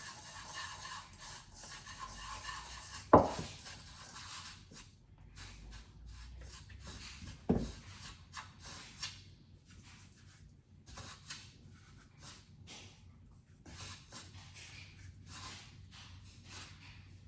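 Hands rubbing seasoning into raw parrotfish and snapper, a run of soft rubbing and scraping strokes. Two sharp knocks stand out, about three seconds in and again about seven and a half seconds in.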